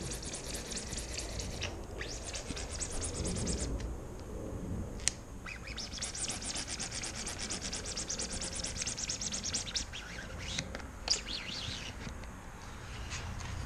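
A bird chirping in two long runs of rapid, evenly repeated high chirps. The first run stops about four seconds in; the second runs from about six to ten seconds. Two sharp clicks come separately, about five and eleven seconds in.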